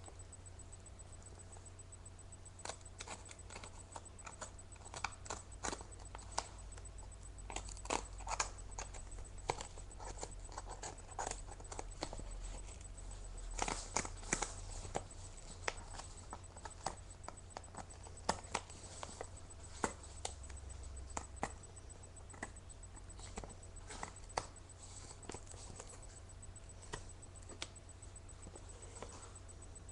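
Packaging being handled and opened by hand: scattered crinkles, rustles and small taps, denser around the middle, over a low steady hum.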